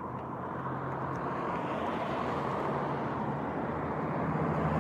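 A motor vehicle drawing nearer, its engine hum and rushing road noise growing steadily louder.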